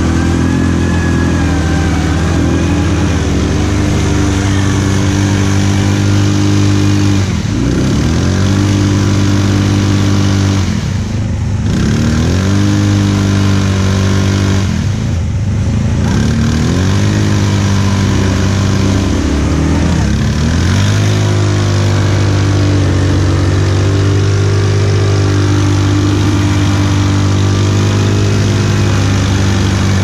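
ATV engine running steadily under throttle. Several times it eases off, its pitch dropping and then climbing back as the throttle is opened again.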